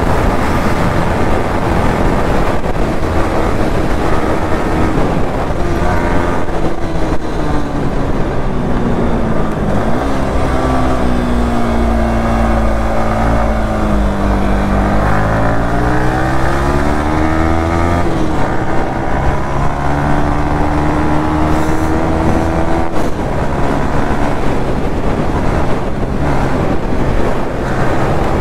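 Yamaha R15 V3's 155 cc single-cylinder engine running under way, its pitch steady at first, then dipping and climbing again about halfway through as the throttle is eased and reopened, then steady again. A rushing noise runs underneath.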